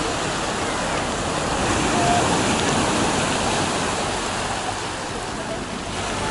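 Storm surf on the Black Sea breaking and washing over a pebble beach, a steady rushing noise of rough sea after a night storm.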